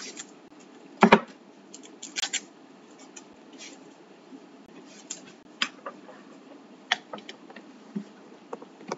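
Handling noise as a computer and its power cable are set up: scattered clicks and knocks, with one louder knock about a second in and a few lighter ones later.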